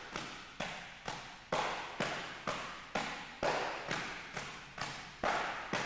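Two people taking turns slapping an Iron Palm training bag with open hands in Shaolin Iron Palm conditioning, a fast even rhythm of about two slaps a second, each with a short echo. The tempo is near the upper limit for good technique, where the hand is still lifted to head height and let drop.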